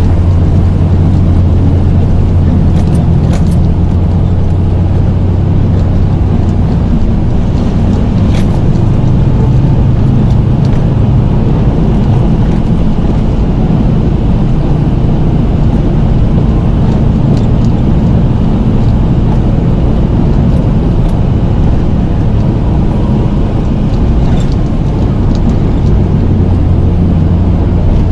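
Snow-plow pickup truck's engine running steadily, its pitch rising about four seconds in and dropping back near the end as the truck drives and pushes snow, with a few light clicks.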